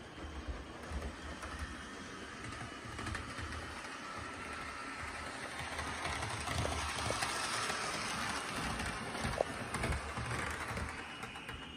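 HO scale model diesel locomotive running on the track: the small electric motor and gears whir and the wheels clatter on the rails, with scattered clicks. It grows louder about halfway through as the locomotive comes close, then eases off near the end.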